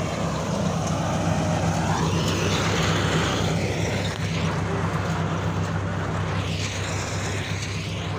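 Combine harvester's diesel engine and threshing gear running steadily at work cutting wheat: a constant low hum under a rushing noise.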